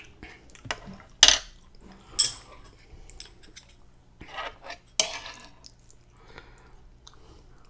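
A metal fork and metal chopsticks clinking and scraping against the griddle plate of an electric griddle while food is gathered up. Sharp clinks come about a second in, at about two seconds with a short metallic ring, and at about five seconds, with quieter scraping between.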